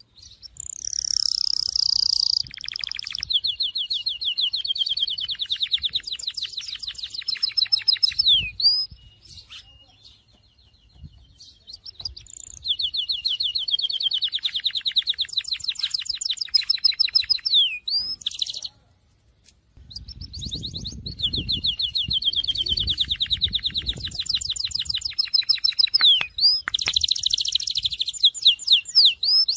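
A Syrian canary sings three long phrases of rapid, high trills, each several seconds long, with short pauses between them.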